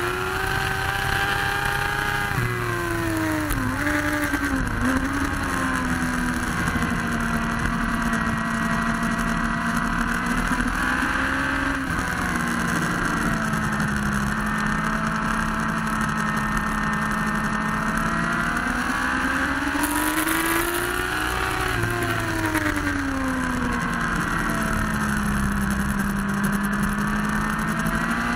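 Motorcycle engine heard from on board at track speed, over a steady rush of wind. The engine note drops a few seconds in, with a couple of quick dips and rises as the bike slows for a corner, holds low and steady through the bend, swells and falls again past the middle, and climbs as the bike accelerates near the end.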